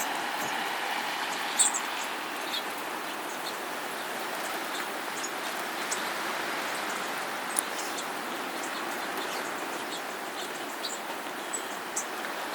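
Small birds giving many short, high chirps over a steady rushing noise; the loudest chirp comes about a second and a half in.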